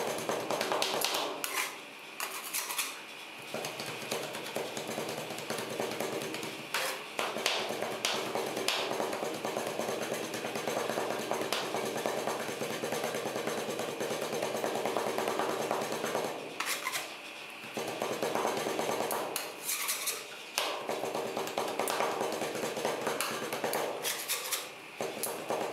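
Two metal spatulas chopping and scraping ice cream on a steel cold plate: a fast, continuous metallic clatter of blade strikes, broken by a few short pauses.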